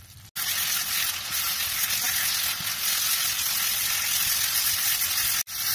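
Chopped patty pan squash curry sizzling in a non-stick frying pan over high heat while it is stirred with a silicone spatula, the released water frying off. A loud, even hiss that starts abruptly about a third of a second in and cuts off abruptly just before the end.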